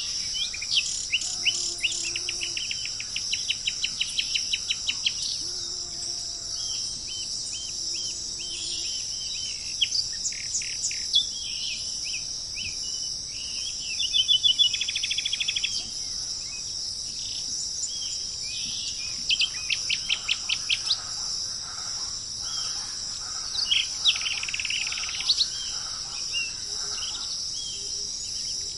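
Tropical birds calling in runs of quick repeated chirps and a short fast trill, over a steady high-pitched drone of insects.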